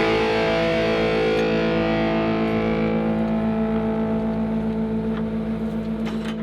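Rock music ending on a distorted electric guitar chord that is held and slowly fades away.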